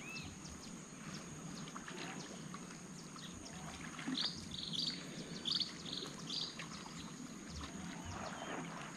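A bird calling: a quick series of about six short, high notes starting about four seconds in, over a faint steady outdoor background with scattered small clicks.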